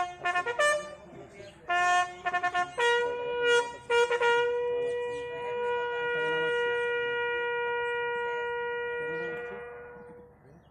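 Bugle call for the lowering of the flags at a border retreat ceremony: several short notes in the first four seconds, then one long held note that fades out near the end.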